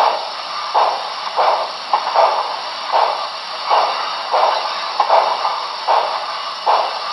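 Paragon 4 sound system of a model ATSF 4000 class 2-8-2 steam locomotive playing steady steam chuffs, about one and a half a second, over a constant hiss as the locomotive runs.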